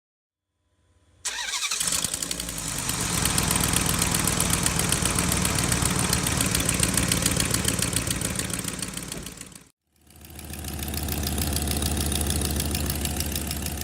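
2006 Dodge Durango's 4.7-litre V8 running with a rapid ticking from an exhaust leak at the right exhaust manifold, where manifold bolts have broken. The sound comes in suddenly about a second in, cuts out briefly about ten seconds in, then returns with a deeper tone.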